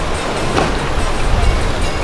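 Twin Suzuki 300 V6 four-stroke outboard engines running under power as the boat drives through choppy water, with a steady low rumble and water rushing off the hull, and a brief splash about half a second in.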